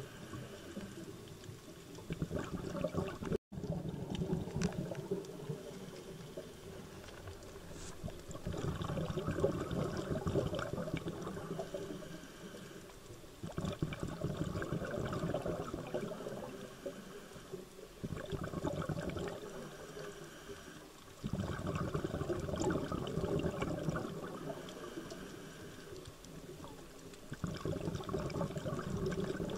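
Scuba diver's exhaled bubbles from the regulator, heard underwater: bubbling, gurgling surges every few seconds, one per breath, with quieter stretches between.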